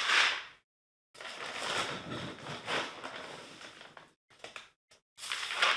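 Pine pellets poured from a measuring cup into a plastic litter pan, a dry rattling hiss, in short bursts. In between, the cup is scooped into the plastic bag of pellets with rustling and crunching. A second pour comes near the end.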